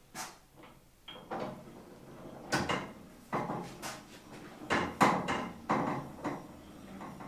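Irregular knocks and clatter of hard objects being handled, about a dozen in a few seconds, the loudest about five seconds in.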